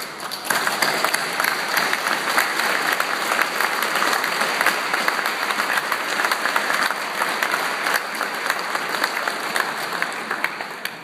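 Audience applauding: many people clapping, starting suddenly, building within half a second, then holding steady and thinning slightly near the end.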